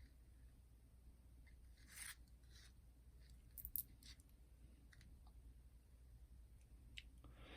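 Near silence with a few faint scrapes and clicks of small tools and plastic parts being handled while screws are taken out of a boombox cassette deck, the clearest about two seconds in and near the middle.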